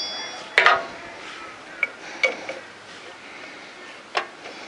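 Metal clinks from a spanner and metal parts being handled: a ringing tone at the start, one loud sharp clink about half a second in, then a few lighter taps and another sharp clink near the end.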